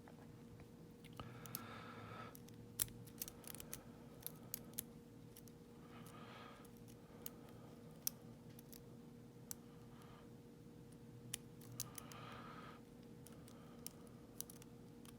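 Faint small metal clicks and three short scrapes of a lock pick working the pins inside a vintage Yale dual custody padlock's cylinder.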